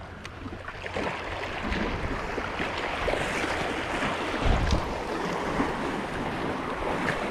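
Sea water washing at the shore with wind on the microphone, an even rushing noise with a louder low rumble about halfway through.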